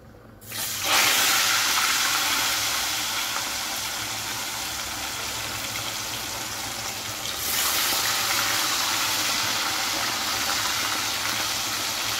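Fish pieces dropped into a pot of hot oil, setting off loud, steady sizzling about half a second in. The sizzle swells again around seven and a half seconds in as the second piece goes in.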